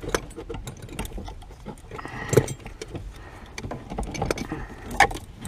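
Scattered metallic clicks, knocks and rattles of an S13 Nissan 240SX's automatic brake pedal assembly being worked free from a tight spot under the dashboard, with louder knocks about two and a half seconds in and again near the end.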